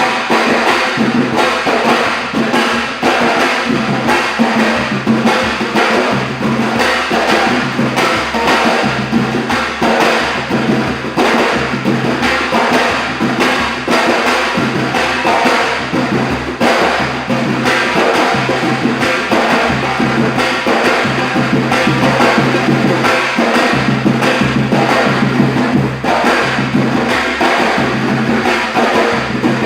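A circle of Brazilian timbal hand drums playing together in a fast, dense rhythm of sharp strokes, with a repeating low drum figure underneath.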